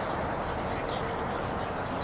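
Steady rush of strong wind, with a couple of faint, short, high bird chirps.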